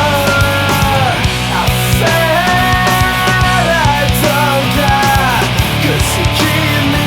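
Nu metal song playing loud: a full band with drums and heavy guitars, and held melodic notes that bend in pitch, about one a second.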